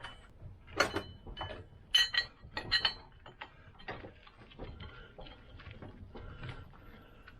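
Sharp metallic clinks and knocks of a Lambretta gearbox end plate and its bearing liner being shifted and repositioned in a bench vice. Four louder ringing clinks come in the first three seconds, followed by fainter small clicks and knocks.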